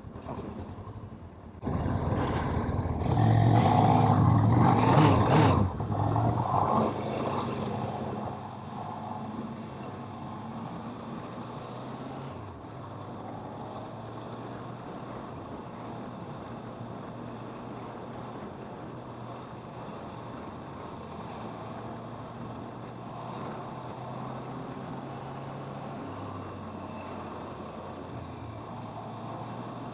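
Kawasaki motorcycle engine running under way, with rushing road and air noise. It is much louder for a few seconds near the start, then settles to a steady low hum.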